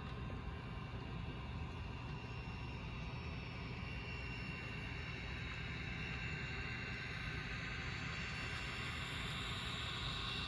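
HO scale model diesel locomotive running, a steady low hum with a higher whine that grows louder toward the end.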